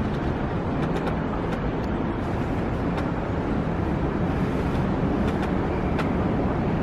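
Steady city traffic rumble: a continuous low noise with no single vehicle standing out.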